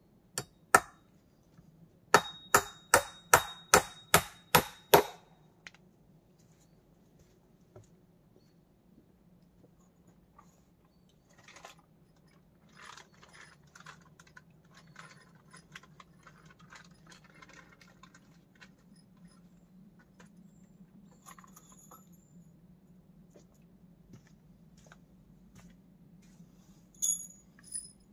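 A quick run of about nine sharp strikes, about three a second, with a faint metallic ring, followed by quieter scraping and rustling handling sounds and two small metallic clicks near the end.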